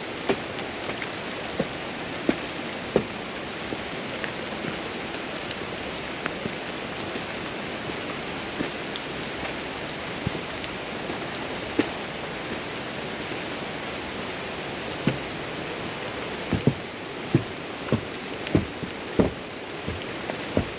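Rain and rushing river water: a steady even hiss with scattered sharp taps of drops, the taps coming more often near the end.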